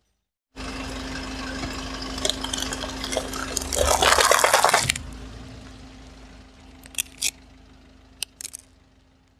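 A car tyre rolling slowly over a row of upside-down aluminium foil cups, crushing them flat with a crackling crunch that is loudest for about a second around the middle, over the low hum of the car's engine. A few light clicks follow near the end.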